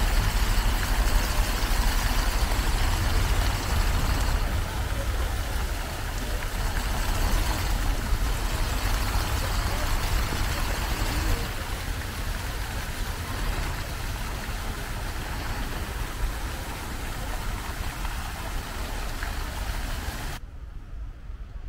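Water jets of a large public fountain spraying and splashing into the stone basin, a steady hiss, over a low rumble and the voices of people around the square. The hiss drops away abruptly near the end.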